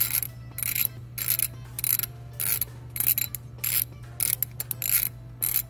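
Hand socket ratchet clicking in short repeated strokes, about two a second, as a bolt on the EGR tube flange is tightened down.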